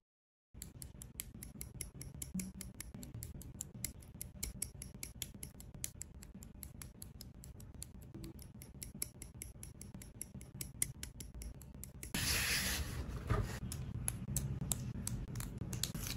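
Side cutters snipping plastic model-kit parts off the sprue, with the parts being handled: a quick run of sharp clicks and snips, growing louder and rougher about twelve seconds in.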